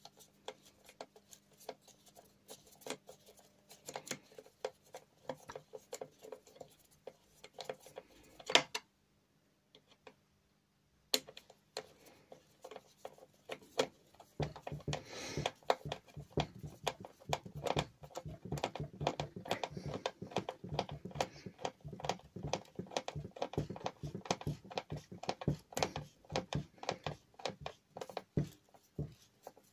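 Screwdriver tightening the cable-grip locking screw on a plastic site-transformer case, heard as small irregular clicks and scrapes of the tool and hand work. The clicking stops briefly about a third of the way in, then comes thick and fast through the second half.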